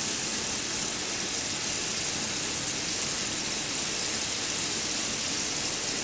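Breaded pike pieces frying in hot oil in a frying pan, a steady, even sizzle.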